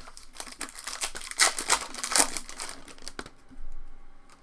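Foil wrapper of a trading-card pack crinkling and tearing as it is opened, loudest about halfway through, ending in a sharp click.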